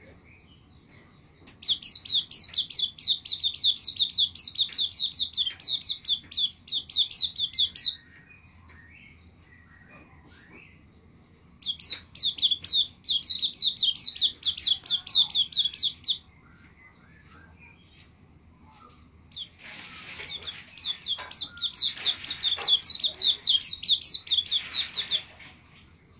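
Caged white-eye (pleci) in full song: three long bursts of fast, evenly repeated high chirps, each lasting several seconds, with pauses of a few seconds between them.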